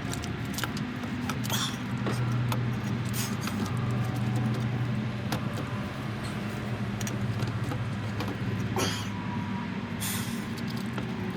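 Hand tools clicking and scraping on metal while a starter is being fitted, with a few short rasps, over a steady low engine hum.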